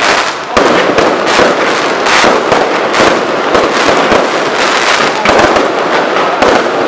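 Loud, continuous barrage of aerial fireworks bursting overhead: bangs and crackle follow one another with no break.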